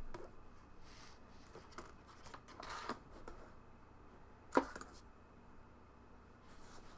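Quiet handling of a metal briefcase-style card box as it is unlatched and its lid lifted open, with a soft scrape nearly three seconds in and one sharp click about four and a half seconds in.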